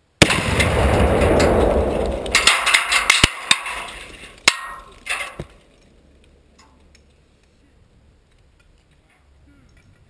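A 2.5 lb Tannerite charge detonating under a dehumidifier: a sudden, very loud blast that rumbles on and fades over about two seconds. It is followed by a few seconds of sharp knocks and clatter as debris comes down, which dies out about five seconds in.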